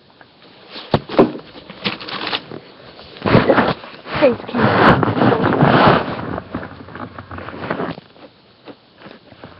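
Handling noise on the webcam microphone: a couple of sharp knocks about a second in, then several seconds of loud rustling and rubbing right against the microphone, tailing off near the end.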